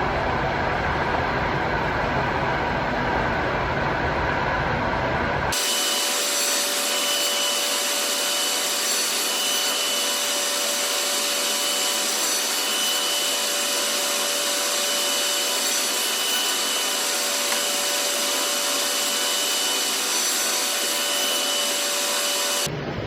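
Surface planer running with a steady, loud machine noise and a faint whine. Its sound changes abruptly about five seconds in, and again just before the end.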